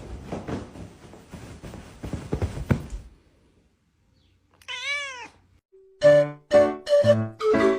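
A domestic cat meows once, a single call rising and then falling in pitch, after a few seconds of rustling noise and a short silence. Music with a steady beat starts near the end.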